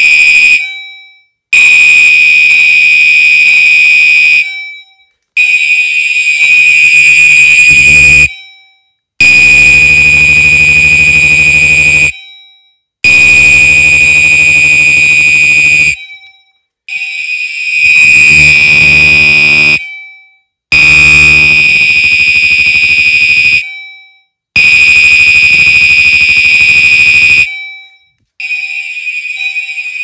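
Gentex fire alarm horn strobes sounding a loud, high electronic horn tone in repeated blasts, each about three seconds long with a pause of under a second between them.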